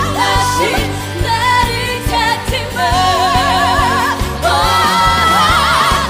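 Background pop music: a lead melody with strong vibrato over a steady bass beat.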